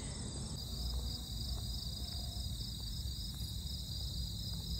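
Steady chorus of insects chirring in a even, pulsing rhythm, with a low rumble underneath.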